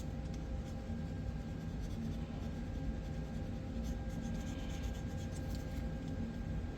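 Scratching and scrubbing at carbon fouling on a steel SKS rifle part, a light, irregular rasp that is a little stronger about four seconds in, over a steady low hum.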